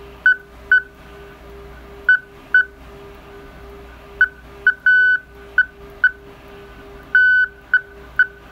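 Slow Hell (Hellschreiber) radio signal sample played back over a computer's speakers: a single-pitched tone keyed on and off in short beeps, often in pairs, with a few longer tones, at a slow uneven rhythm that sounds like CW. Each on-off beep is the transmitter sending one dot of a character's grid at a slow rate.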